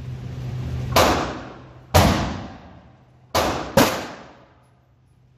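Four handgun shots inside an indoor range, each followed by a long echo off the walls: two about a second apart, then a quick pair near the end. A steady low hum runs underneath.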